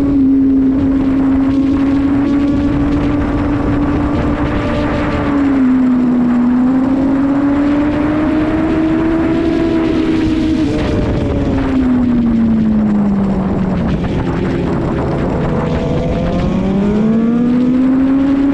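Sportbike engine running hard at high revs, heard onboard at speed with wind rush over it. The engine note holds fairly steady, wavers, then falls for a few seconds and climbs again near the end as the bike accelerates.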